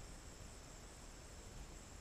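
Faint outdoor background: a steady high insect drone, crickets, over a low patchy rumble of wind on the microphone.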